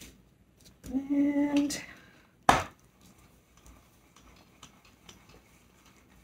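A single sharp knock about two and a half seconds in, then faint rustling and small clicks of handling.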